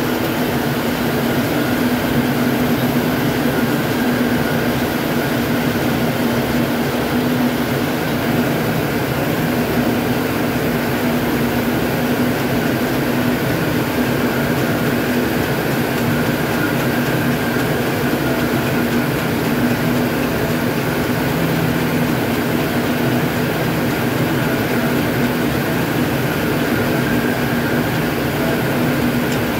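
Ring spinning frames running in a spinning mill hall: a steady, unbroken machine whir and hum with a constant mid-pitched drone and a thin high whine over it.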